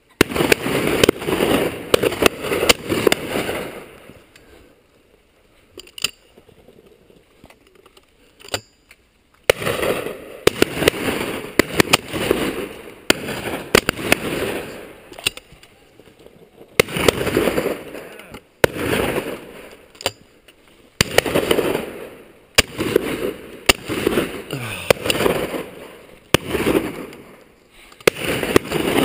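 Handling noise from a camera mounted on a shotgun as the gun is carried and swung: repeated bursts of rustling and rubbing a second or two long, with sharp clicks and knocks among them.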